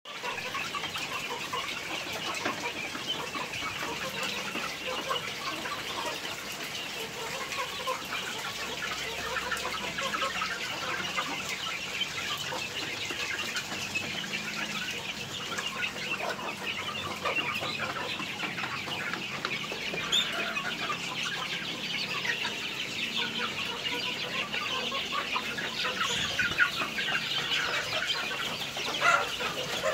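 A flock of caged chickens clucking steadily while they eat, with a dense patter of beaks pecking feed from trough feeders.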